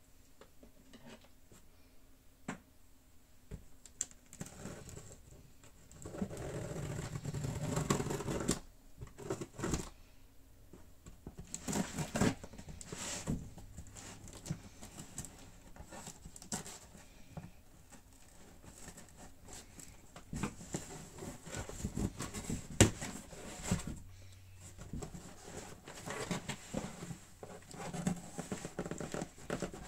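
Cardboard shipping box being opened by hand: packing tape slit and pulled, and cardboard flaps scraping and knocking, in irregular bursts of scratching, tearing and rustling.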